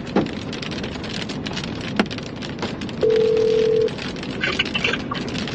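An outgoing phone call's ringing tone, a steady beep sounding once for just under a second about three seconds in, over steady rain noise on the vehicle and a few sharp clicks.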